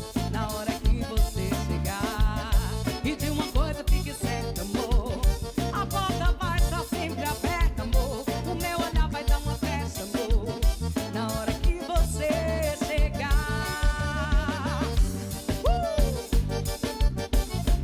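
Band music with a steady, driving beat and a melodic lead line over it.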